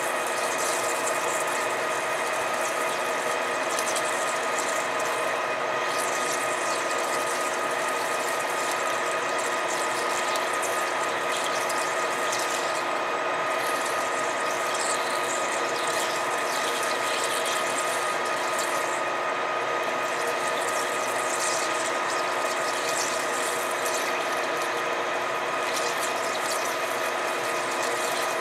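Metal lathe running under power, turning a small metal threaded insert with flood coolant. A steady machine whine with several constant tones, mixed with the hiss of the cut and the coolant.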